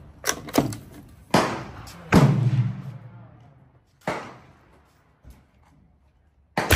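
Gunshots on a shooting range while a Brno Model 1 bolt-action .22 Long Rifle trainer is being fired. There are about six sharp reports, some too close together to come from one bolt-action, so other guns are going off as well. The loudest report, about two seconds in, is followed by a low boom.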